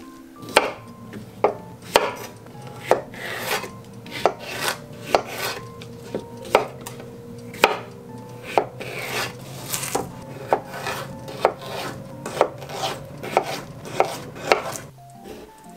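Chef's knife slicing small cucumbers into sticks on a wooden cutting board: each cut ends in a sharp knock of the blade on the board, irregular, one or two a second, with scraping of the blade between cuts.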